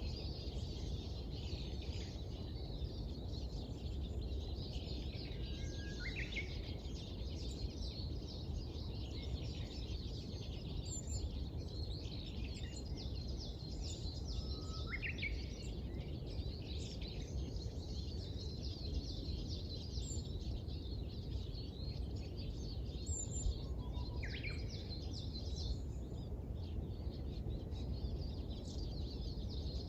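Many small birds chirping and twittering in a dawn chorus, with a few louder calls that sweep upward, over a steady low background rumble.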